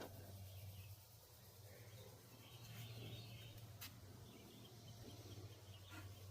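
Near silence: a faint steady low hum, with faint high chirps around the middle and a single soft click a little before two-thirds of the way through.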